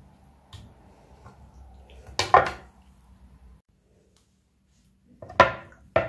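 Kitchenware clattering on a countertop: two short, loud knocks, one about two seconds in and one near the end.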